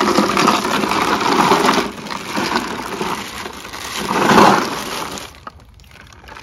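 Ice cubes crunching and clattering as a hand digs through the ice in a plastic cooler, with a plastic bag rustling. Loudest a little past four seconds in, then dying down near the end.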